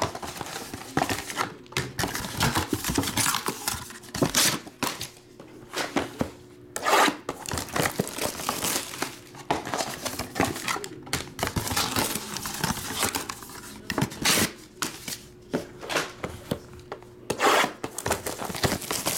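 Plastic shrink-wrap and plastic-wrapped card packs crinkling and tearing as small cardboard trading-card boxes are opened by hand, in irregular rustles and sharp crackles.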